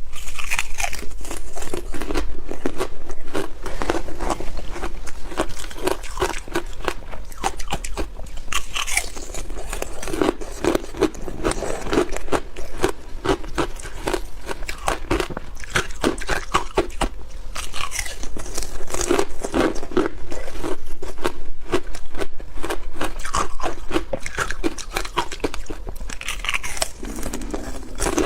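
Ice being bitten and chewed close to the microphone: dense, continuous crunching made of many rapid cracking snaps.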